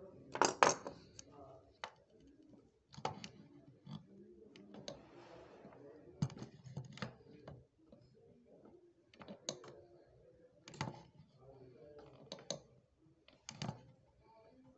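Sharp clicks and short scrapes of a steel setting tool on the silver bezel of a ring held in a wooden ring clamp, as the bezel is pressed down around the stone. They come irregularly, about one every second or two, and the loudest is near the start.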